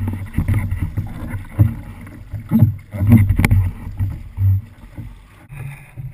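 Kayak being paddled through choppy sea: water sloshing and splashing against the hull and paddle. Irregular low rumbling thumps, with a few sharper splashes, the loudest a little after three seconds in.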